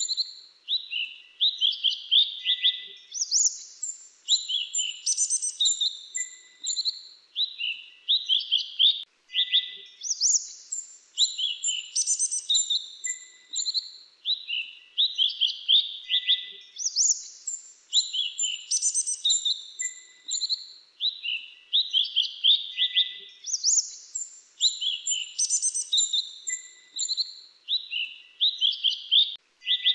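Grey-chinned minivet calling without pause: quick runs of high, sharp chirps, the same phrases repeating every second or so.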